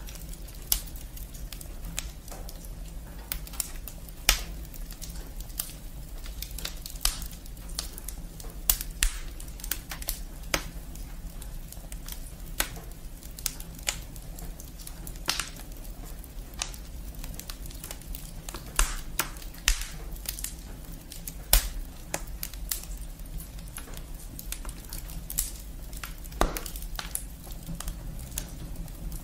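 Wood fire in a fireplace crackling, with logs and twigs giving a constant patter of small irregular snaps and a louder pop every few seconds.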